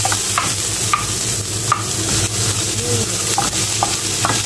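Sliced onion, ginger and garlic sizzling in olive oil in a nonstick frying pan, with a wooden spatula stirring and scraping them in repeated short strokes.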